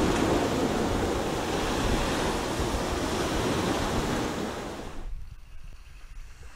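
Steady rush of ocean surf mixed with wind. About five seconds in it drops away to a faint low rumble.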